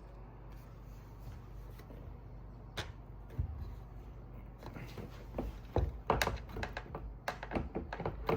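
Scattered light knocks and clicks of an electric one-wheel board's parts being handled and pried during disassembly, a few at first and busier in the last few seconds.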